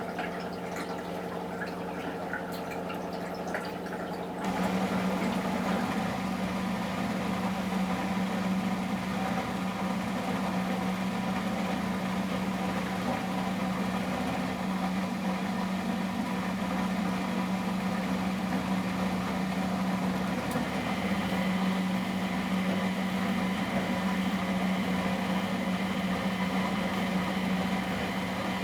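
Miele Professional WS 5426 washing machine: water trickling and dripping inside the machine, then about four seconds in a motor starts and hums steadily for the rest of the time.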